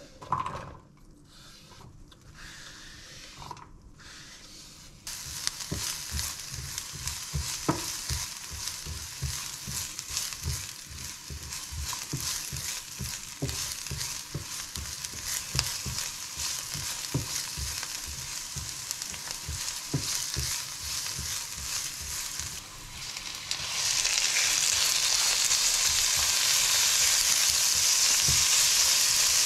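Knife scrapes and taps on a wooden cutting board as diced onion is pushed into the pan. Then the onion starts sizzling in hot oil in a nonstick frying pan, with frequent taps and scrapes of a spatula stirring it. Near the end the sizzle jumps louder and stays there as ground beef goes in.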